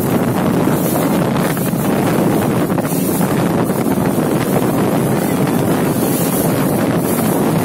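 Wind blasting the microphone and water rushing and spraying along the hull of a small motorboat running fast over choppy water; an even, steady noise.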